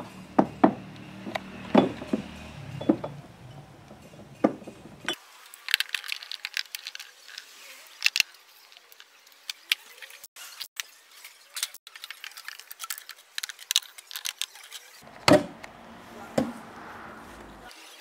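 Glass beer bottles clinking and knocking against each other and the wood as they are lifted from crates and stacked into a wooden pallet cart. A dense run of sharp clinks fills the middle, with a few louder knocks near the start and again near the end.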